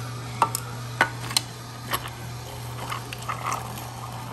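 Omega cold-press juicer running, its slow auger crushing pineapple chunks. A steady low motor hum with irregular sharp cracks and crunches as the fruit breaks up, several in the first two seconds and softer crackling after.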